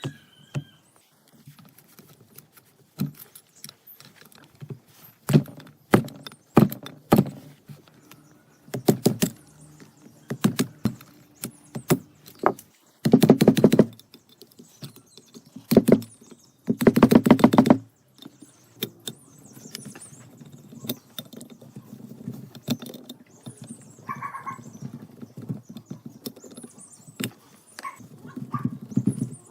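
Workshop handling of tools and parts: scattered knocks and clicks, with two short bursts of rapid rattling, each about a second long, around the middle.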